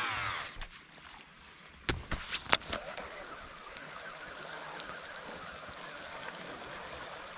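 Baitcasting reel on a lure retrieve: a few sharp clicks about two seconds in, then a steady faint whirring as the line is wound in.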